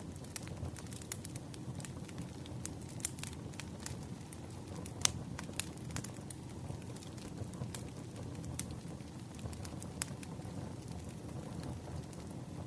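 Firewood burning: irregular sharp crackles and pops over a low, steady rumble of the fire, with one louder pop about five seconds in.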